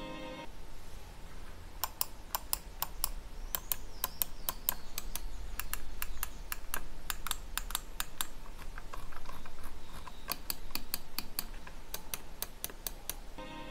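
Buttons of a Dareu EM907 gaming mouse being clicked: many sharp clicks, some in quick runs and some single, with short pauses between.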